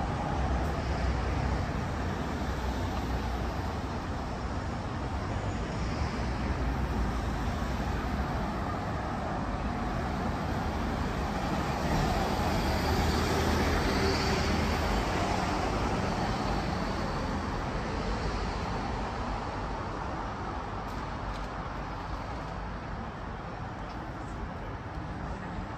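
Road traffic passing: a steady rumble of car and van engines and tyres, swelling about halfway through as vehicles go by and easing off toward the end.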